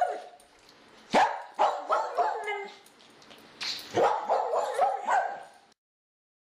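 A dog barking and yapping in two quick runs of short barks, cutting off abruptly to silence near the end.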